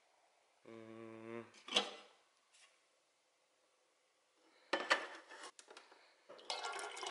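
A short steady hum from a man, then a click. Later come two spells of clattering and clinking of hard objects, the second one ringing, as a refrigerator door dispenser dispenses into a stainless steel shaker bottle.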